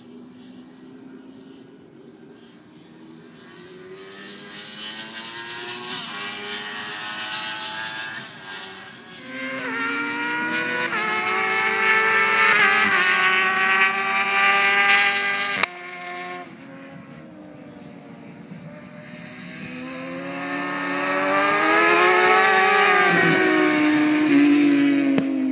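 Sport motorcycles at speed on a race track, engines climbing in pitch and dropping back with each upshift as they accelerate through the gears and grow louder. The engine sound cuts off suddenly about two-thirds of the way through. Then two bikes approach and go by near the end, the pitch falling as they pass.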